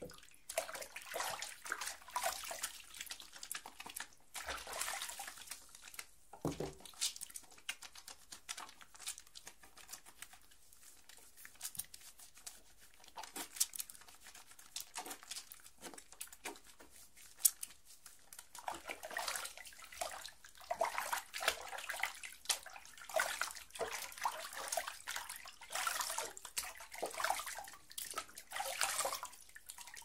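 Hands being washed in a filled wash hand basin: irregular splashing and sloshing of water, sparser through the middle and busier again in the last third.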